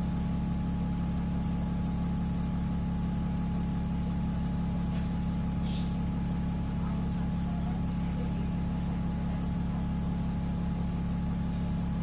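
Steady, even drone of a Wright Gemini 2 double-decker bus's diesel engine and running gear, heard from inside the passenger saloon.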